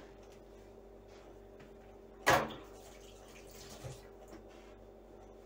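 A single sharp knock about two seconds in, then a kitchen tap running briefly into the sink.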